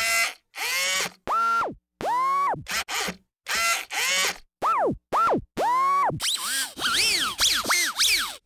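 A string of short electronic tones, each rich in overtones and many sagging sharply down in pitch as they cut off, separated by brief silences. About six seconds in, a cluster of quick overlapping whistling glides that rise and fall.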